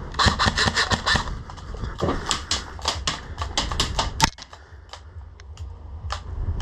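Airsoft guns firing rapid strings of sharp clicking shots, about eight a second: one string in the first second, a longer one from about two seconds in that ends with a single loud crack just past four seconds, then a few scattered shots.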